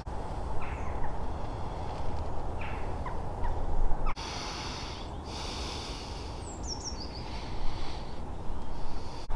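Birds calling in short chirps and a quick run of falling notes, over a steady low rumble.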